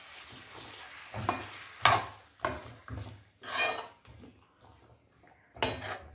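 A metal spoon stirring thick ground coconut masala into vegetables in a metal kadai, in about five separate scrapes and knocks against the pan.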